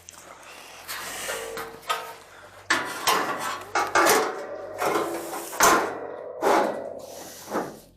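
Sheet-metal clattering and scraping, irregular and getting busier and louder about three seconds in, as the car's steel upper cowl panel is handled and set in place for fitting.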